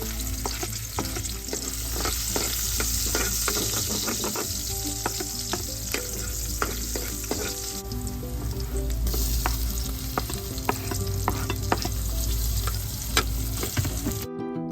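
Food sizzling in hot oil in a pan while being stir-fried, with the cooking utensil clicking and scraping against the pan many times at an irregular pace. The sizzling cuts off abruptly near the end.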